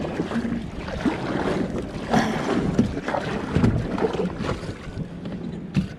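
Wind buffeting the microphone over water lapping and splashing against a kayak's hull, in irregular surges.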